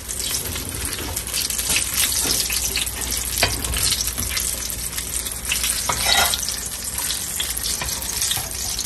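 Egg-battered chile relleno frying: a steady crackling sizzle, with a few short sharper clicks.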